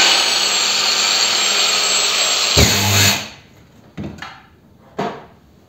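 A PROCRAFT PW 1100 ES 125 mm angle grinder with a wire cup brush runs steadily at speed. About two and a half seconds in it gives a short harsh burst under load and cuts out as its overload protection stops the motor, then winds down quickly. Two light clicks follow.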